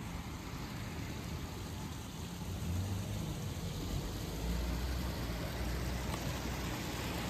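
Outdoor street ambience: a steady low rumble of road traffic with a hiss over it, growing a little louder about halfway through.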